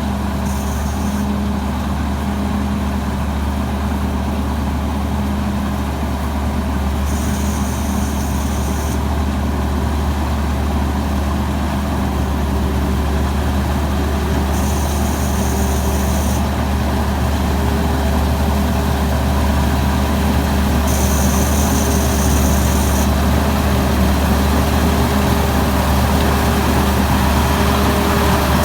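Tamco Pro S9000 combine harvester's Hino J08C diesel engine running steadily, growing slightly louder toward the end. A high hiss comes in for about two seconds roughly every seven seconds.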